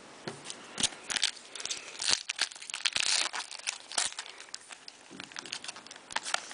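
Crinkling and tearing of a trading-card pack wrapper, with irregular crackly clicks and a denser stretch of crinkling about three seconds in, as cards are handled.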